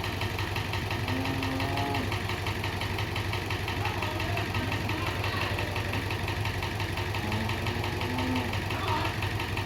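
A farm vehicle's engine idling steadily with a fast, even low pulse, the noise the farmer has just asked about. Faint drawn-out tones come in twice above it.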